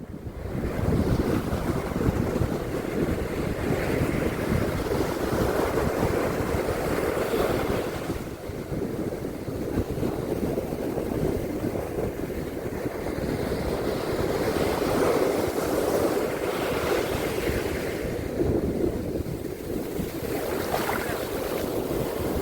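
Ocean surf washing onto a beach, a continuous rush that swells and eases in slow surges, with wind rumbling on the microphone.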